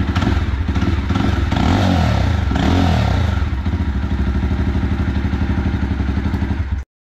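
Jawa Perak's single-cylinder engine running steadily, revved up and back down a couple of times between about one and a half and three and a half seconds in. The sound cuts off suddenly near the end.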